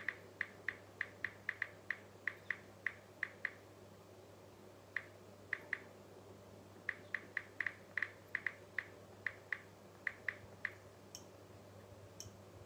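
Smartphone keyboard clicks as the screen is typed on: short, light ticks in irregular runs of a few a second, broken by pauses, over a faint low electrical hum.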